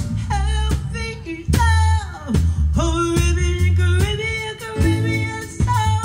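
Live Caribbean soul band playing, with a woman's lead vocal sliding through long, bending notes over a bass line and drum kit.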